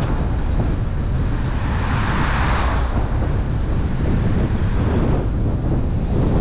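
A car driving slowly along a road, heard as a steady low rumble of road and wind noise, with a hiss that swells and fades about two seconds in.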